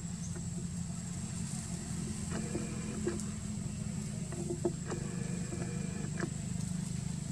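Steady low engine drone, with a thin steady high whine over it, and several short squeaks from young macaques wrestling in the grass.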